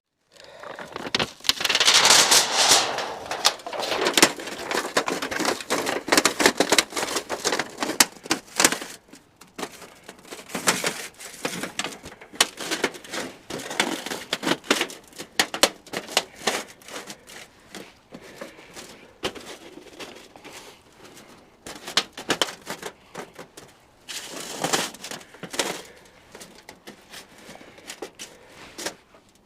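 Irregular crackling, crinkling and clicking handling noise, loudest over the first several seconds and again briefly about 25 seconds in.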